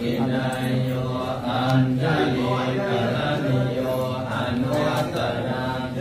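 A group of Buddhist monks chanting Pali verses together in a low, steady, sustained unison.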